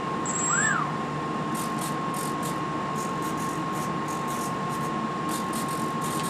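A steady background hiss with a constant high tone. About half a second in, the small electric motor of a foam RC plane is blipped briefly: its whine rises and falls in pitch, with a thin high whine from the speed controller. A run of faint, irregular high ticks follows.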